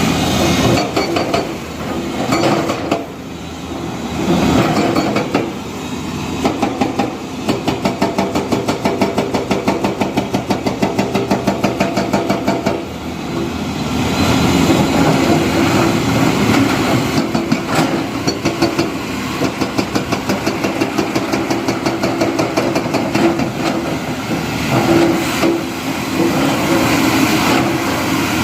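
Heavy diesel construction machinery working, its engine running under load with a fast, regular pulsing through long stretches.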